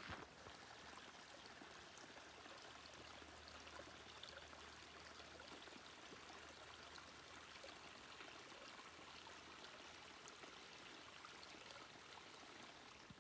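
Faint, steady running water of a small spring-runoff creek.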